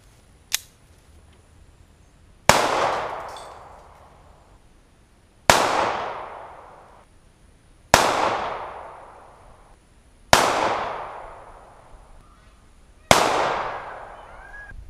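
Five single shots from a Zastava M88A 9mm pistol, fired about two and a half seconds apart, each ringing out and dying away over a second or two. A sharp click comes about half a second in.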